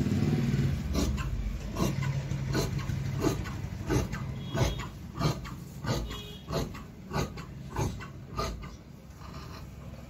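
Large tailor's shears cutting trouser cloth on a wooden table, the blades closing in steady snips about three every two seconds. A low rumble is loudest at the start and fades out over the first two seconds.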